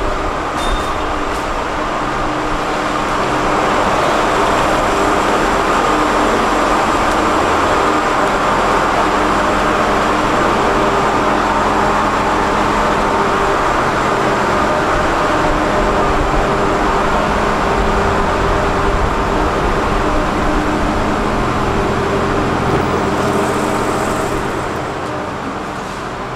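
Electric train at a station platform: a steady rumble and hum with several held tones, growing louder a few seconds in, with a brief hiss near the end.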